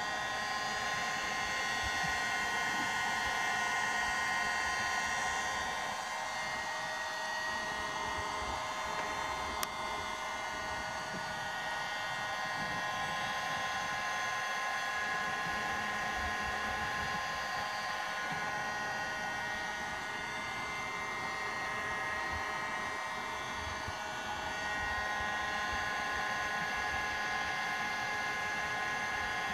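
Handheld electric heat gun running steadily, its fan blowing with a steady whine, held on one spot of a plexiglass sheet to soften it for bending. A single brief click sounds about ten seconds in.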